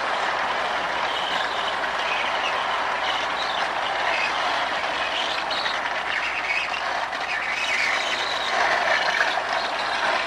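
Marx Commodore Vanderbilt toy locomotive, its pre-war electric motor fitted with new brushes, running steadily on the track while pulling a string of small tin passenger cars.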